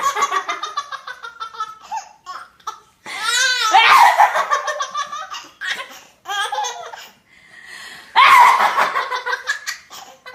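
A baby of about five and a half months laughing uncontrollably in four long bursts of belly laughter, set off by her mother's coughing.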